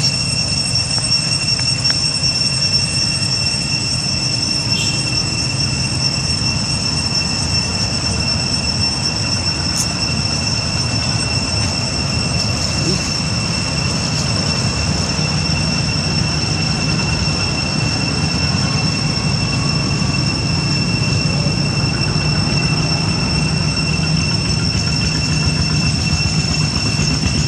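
Cicadas droning steadily at one unchanging high pitch, over a low rumble.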